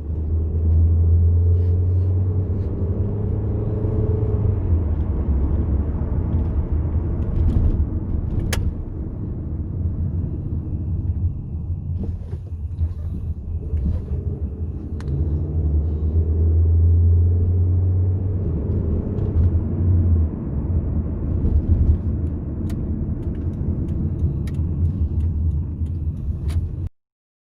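Car running or driving, a steady low rumble of engine and road noise with a few sharp clicks; it cuts off suddenly near the end.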